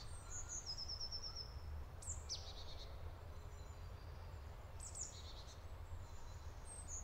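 Quiet forest ambience with songbirds calling: a quick run of short high notes about half a second in, a downward-sweeping call about two seconds in, and more short calls near five seconds and at the end, over a low steady rumble.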